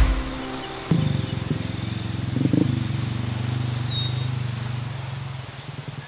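Steady high-pitched chirring of insects. Low sustained tones come in about a second in and fade out near the end.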